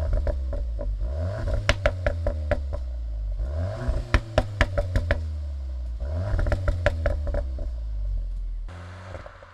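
Cupra Ateca's 2.0 TSI turbo four-cylinder through an Akrapovic exhaust, revving up three times, each rev followed by a burst of crackles and pops on the overrun from the ECU's pops-and-bangs tune. The engine sound drops away near the end.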